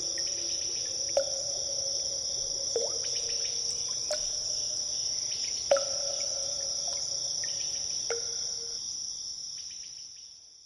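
Water drops falling into a cave pool, about five separate plinks, each with a short ringing tone, over a steady high-pitched insect chirring. The whole sound fades out over the last couple of seconds.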